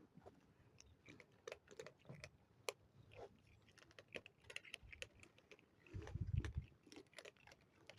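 Cats chewing dry food: faint, irregular crisp crunches and clicks, with a brief low rumble about six seconds in.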